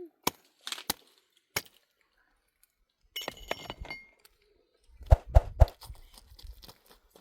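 A few sharp clicks and clinks, then a short rattling clatter, then three heavy thumps about a quarter of a second apart, followed by a few more knocks.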